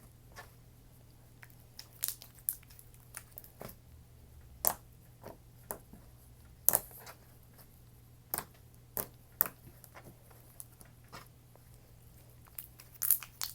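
Slime being played with by hand, giving irregular short sharp clicks and pops, the loudest about halfway through and a quick cluster near the end.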